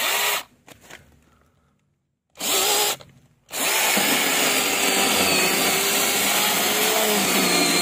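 Cordless mini chainsaw with a 4-inch bar, its electric motor and chain whirring in two short bursts, then running steadily from about three and a half seconds in as it cuts into the trunk of a kapok tree.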